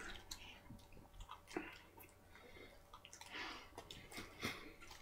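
A person chewing mouthfuls of McChicken sandwich, faint wet chewing and smacking with small clicks, swallowing between bites.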